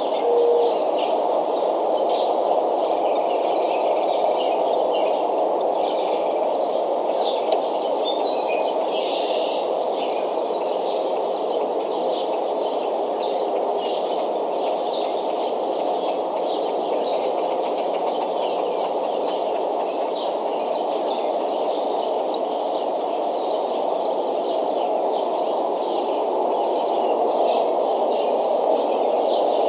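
Outdoor ambience at a bald eagle nest camera: a steady rushing noise with many short bird chirps scattered throughout.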